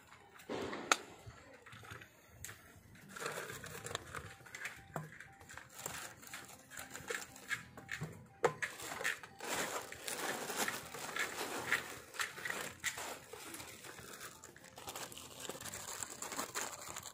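Handling noise from a fibre-optic dome splice closure: plastic crinkling with many small clicks and knocks as its parts are worked by hand. There is one sharp click about a second in.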